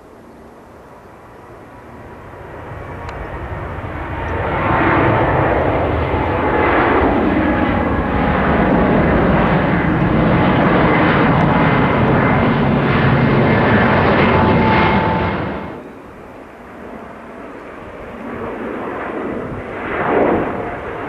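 Boeing 787 Dreamliner's jet engines growing louder as the airliner approaches, then a loud, steady jet rush for about ten seconds that drops off suddenly. A quieter jet rumble follows and swells again near the end.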